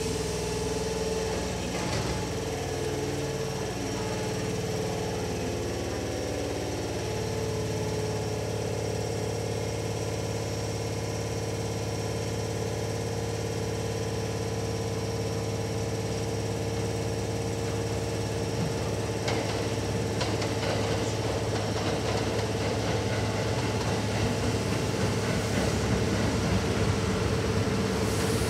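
Electric train humming steadily with several held tones, some of which shift pitch in steps in the first few seconds. From about two-thirds of the way through, a Kintetsu limited-express-type electric train's running noise swells as it approaches and passes on the far track near the end.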